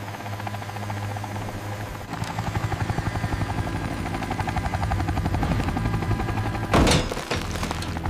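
Cartoon helicopter sound effect: rotor blades chopping in a fast, even beat over a low engine hum. A loud thud near the end as the heavy metal traction pad is set down in the mud.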